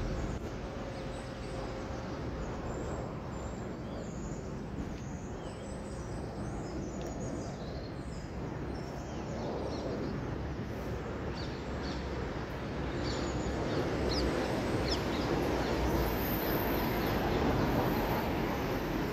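Steady low outdoor rumble, with small birds chirping now and then, in a spell a few seconds in and again after the middle.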